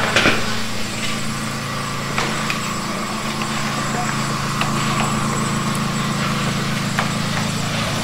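A small engine running steadily with a low, even drone, with a few light knocks over it.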